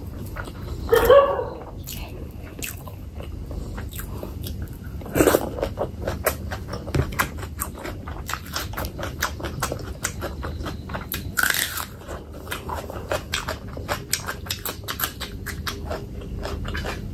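Close-miked chewing and wet mouth smacking of someone eating fatty pork belly curry with rice, a dense run of small clicks. A short, loud pitched sound comes about a second in, and there are louder smacks near five and eleven seconds.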